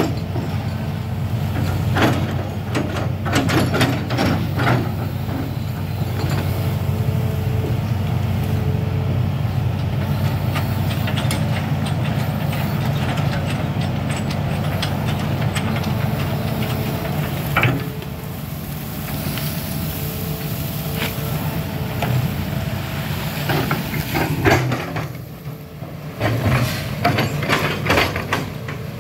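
Diesel engine of a Hitachi amphibious excavator running steadily as a low, even hum while it digs. Scattered knocks and clanks come from the arm and bucket working mud, in a cluster a few seconds in and another near the end.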